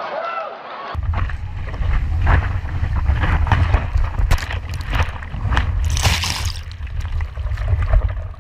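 Loud wind buffeting the microphone, a constant low rumble, with scattered sharp knocks and a brief hissing burst about six seconds in.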